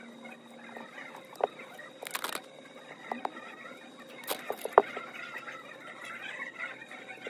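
Small clicks and taps of plastic and metal parts as fingers handle a replacement iPhone 8 Plus screen assembly and fit the small bracket at its top edge. A short rustle comes about two seconds in, and a sharp click about five seconds in is the loudest sound.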